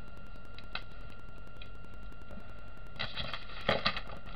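Steady low room hum, then about three seconds in a brief rustle of a paper sheet being handled and shifted on the table, lasting about a second.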